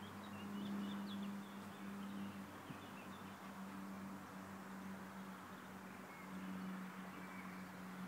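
Faint outdoor ambience: a steady low hum with a few faint bird chirps in the first few seconds.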